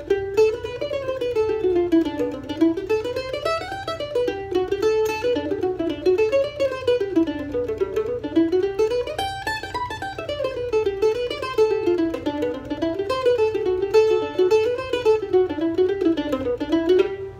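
F-style mandolin played solo: quick picked single-note scale runs in G that climb and fall, with the tune's melody notes hit at the start of each measure. The playing stops shortly before the end.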